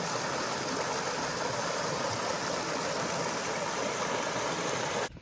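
Steady rush of flowing water, an even hiss with little low rumble, which cuts off suddenly near the end.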